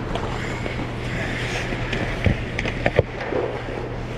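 Ice skate blades gliding and scraping on rink ice over a steady low hum, with two sharp knocks about two and three seconds in.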